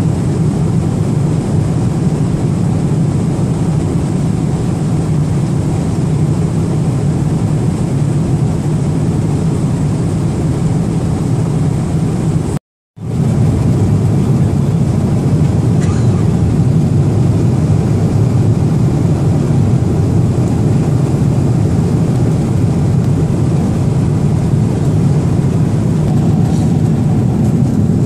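Steady cabin noise inside a Boeing 777-300ER at cruise altitude: a dense, even low rumble of airflow and engines. It breaks off abruptly for a split second about 13 seconds in, then carries on unchanged.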